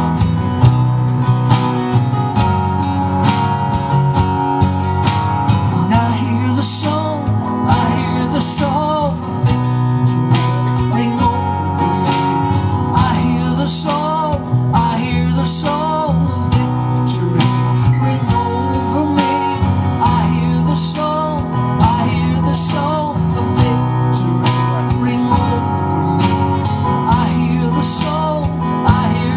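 Live worship song played on a strummed acoustic guitar over a low bass line, with a man singing from about six seconds in.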